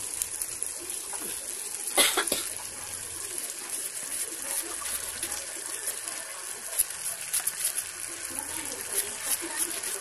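Chicken frying in hot oil in a pan: a steady sizzle with frequent small crackles and pops. A sharp double knock about two seconds in.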